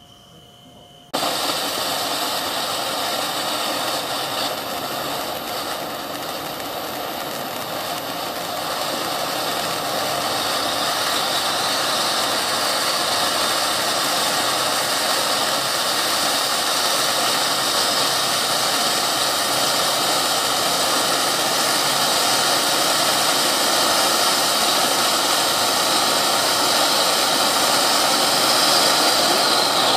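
Cone-shaped ground firework fountain spraying sparks with a steady rushing hiss. It starts suddenly about a second in and grows slightly louder toward the end.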